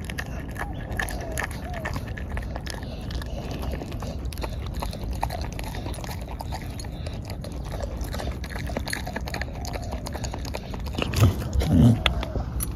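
A dog chewing and crunching at a raw chicken carcass: many small crunches and clicks of teeth on bone and flesh. A few louder low sounds come about a second before the end.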